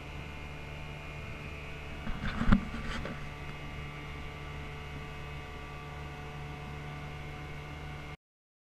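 Steady drone of the boat's engine, with a short cluster of knocks about two to three seconds in, the loudest about halfway through the cluster. The sound cuts off abruptly near the end.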